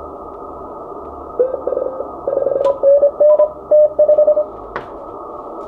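Morse code (CW) from the Icom IC-7300 HF transceiver's speaker: steady band hiss through the narrow CW filter, then from about a second and a half in to four and a half seconds a loud single-pitch tone keyed in short and long elements, dits and dahs, from a station being copied. A single click comes near the end.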